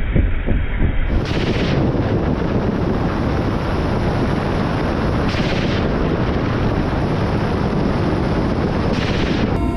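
Ka-52 attack helicopter firing salvoes of rockets: irregular low thumps, then from about a second in a dense continuous rushing roar of fire with three louder surges.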